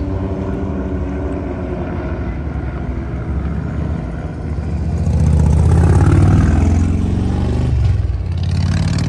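Aircraft flying over with a low engine rumble that swells about five seconds in and eases off after about eight seconds.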